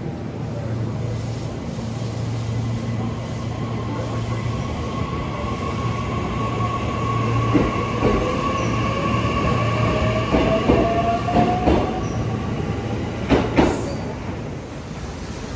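JR West 227 series electric train pulling away from the platform, its motors giving a tone that rises slowly in pitch as it gathers speed. In the second half the wheels click over rail joints, ending in a loud double clack as the last car passes.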